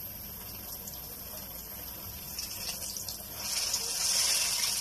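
Besan-battered potol slices shallow-frying in hot oil in a pan, making a steady hissing sizzle. A few light clicks come just before the sizzle swells, about three and a half seconds in, as a spoon presses down on the frying pieces.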